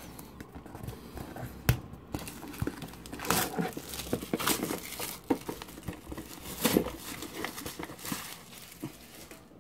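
Crinkling and rustling of packaging as hands work open a trading-card tin, with scattered sharp clicks and knocks.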